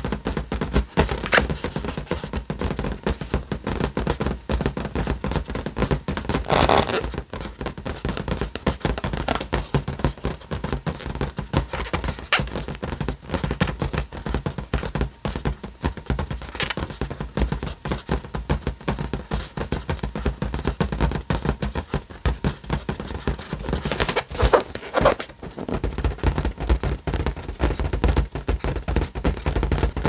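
Inflated balloon rubbed and handled right against the microphone: a dense run of squeaks, scrapes, rubbing and small knocks. There are louder stretches of rubbing about seven seconds in and again around twenty-four seconds in.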